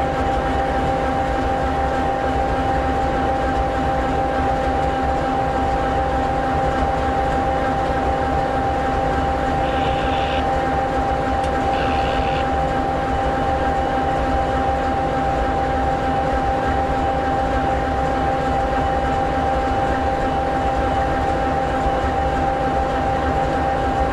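EMD 16-710G3B two-stroke V16 diesel of an SD60E locomotive idling steadily, a constant rumble with a steady hum of several tones. Two brief high-pitched sounds come about ten and twelve seconds in.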